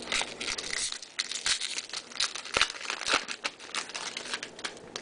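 Foil wrapper of a Topps baseball card pack being torn open and crinkled: a dense, irregular run of sharp crackles.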